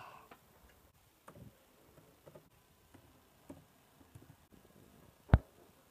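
Faint scattered clicks and taps from handling an HP laptop, with one sharp, much louder click about five seconds in.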